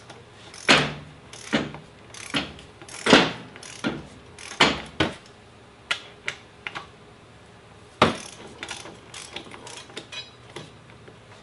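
Hand ratchet clicking in short, uneven strokes as bolts at the bottom of a motorcycle front fork leg are run in.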